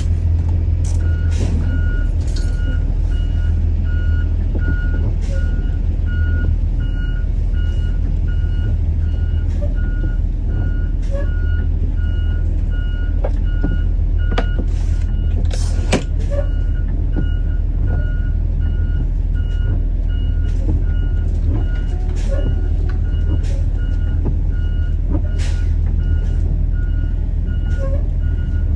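School bus backing up: its reversing alarm beeps steadily, about twice a second, over the deep, steady run of the bus engine, with occasional clicks and knocks.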